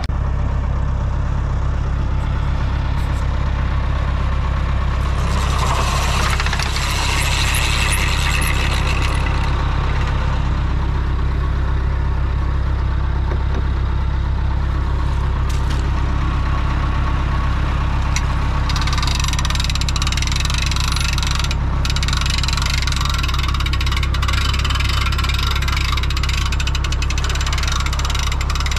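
Tractor engine running steadily at low revs, a deep even throb. A hissing rush comes in over it a few seconds in and again from about two-thirds of the way through.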